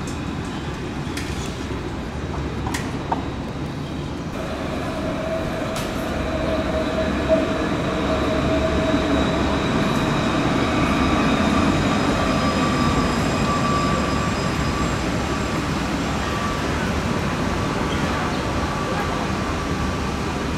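Alstom Citadis low-floor electric tram running on street track: a steady rumble of the wheels on the rails, with a high whine that comes in about four seconds in and holds for most of the rest, and a few sharp clicks before it.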